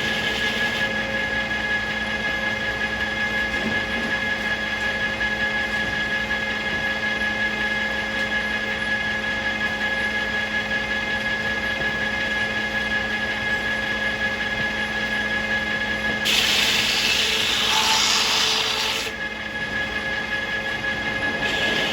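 Circular sawmill running steadily with a constant hum. Near the end a louder, hissing burst lasts about three seconds.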